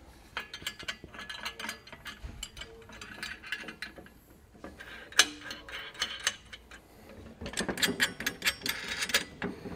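Steel brackets, bolts and nuts clicking and clinking as mounting hardware is fitted by hand, with one sharper metal clank about five seconds in and a quick run of rapid clicks near the end.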